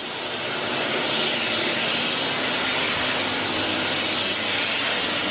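Vacuum cleaner running with its long extension wand, a steady rush of air with a faint high whine; it grows louder over the first second.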